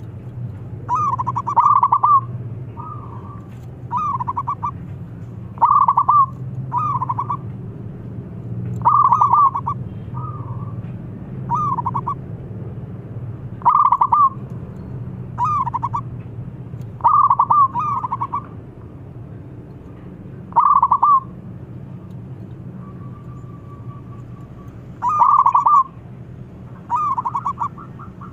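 Zebra dove (perkutut) in full song: short phrases of rapid, stuttering coo notes, repeated every second or two with a brief pause about two-thirds of the way through, over a steady low hum.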